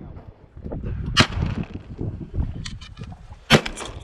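Shotguns firing at passing ducks: a loud shot about a second in, a few fainter shots a little before three seconds, then another loud shot followed quickly by one more near the end.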